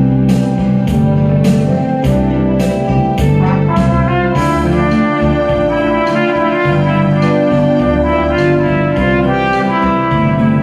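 Trumpet playing a melody of long held notes over a backing track with a steady beat. The trumpet line comes in strongly about four seconds in.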